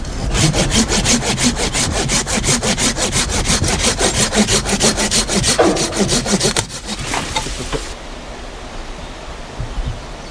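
Hand saw cutting through a walnut branch: rapid, even back-and-forth strokes, about six a second, that slow and stop a couple of seconds before the end.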